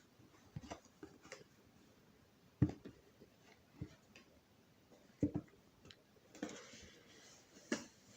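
Cardboard box and packaging being handled and opened: scattered light knocks and clicks, the loudest about two and a half seconds in, and a short rustling slide near the end.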